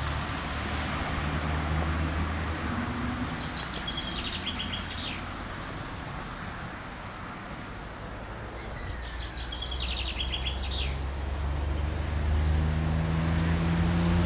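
A low engine hum runs steadily and grows louder toward the end, while a small bird sings two short rapid trills, one about four seconds in and another about nine seconds in.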